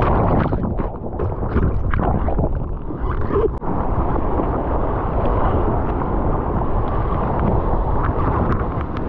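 Seawater rushing and splashing over a camera mounted on a bodyboard's nose, first under breaking whitewater, then with arm paddling strokes. Wind and spray buffet the microphone.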